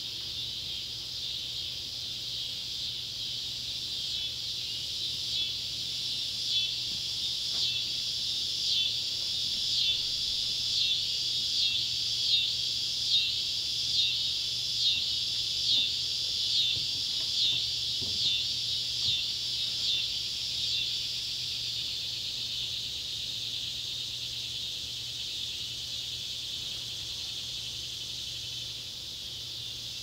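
Scissor-grinder cicadas (Neotibicen pruinosus) and swamp cicadas (Neotibicen tibicen) calling in chorus as a steady high buzz. From about five seconds in, one call pulses a little over once a second, swells, then fades away by about twenty seconds.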